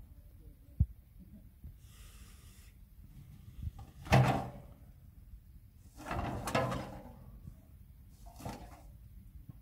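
A baboon tipping over and handling a rubbish bin: two loud knocks with clatter, about four and about six seconds in, and a fainter one near the end.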